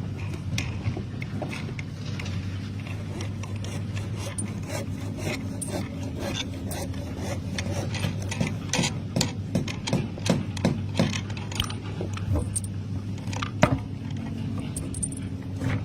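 A running machine gives a steady low hum, with many irregular clicks and taps over it, more of them in the second half.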